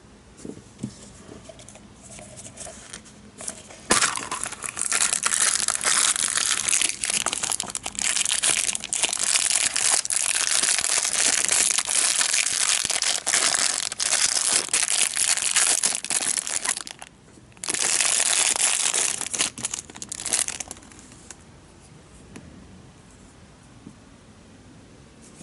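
Clear plastic wrapper bag crinkling as it is crumpled in the hands, starting suddenly about four seconds in. It breaks off briefly, resumes for a few seconds, then stops about twenty seconds in, leaving only faint handling noise.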